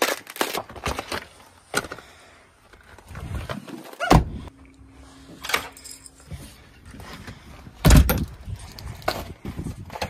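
Handling noises: footsteps, door thuds and keys jangling, with two louder knocks about four and eight seconds in, then a vehicle door being opened near the end.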